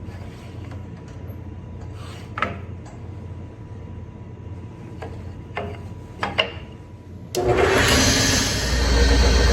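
A few light knocks and clicks of wood being handled, then about seven seconds in an old Delta table saw switches on and runs loud and steady.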